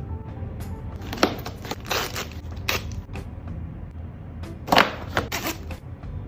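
Background music with a steady low bed, overlaid by irregular sharp clicks and crackles of toy packaging being handled and opened, the loudest a little before the five-second mark.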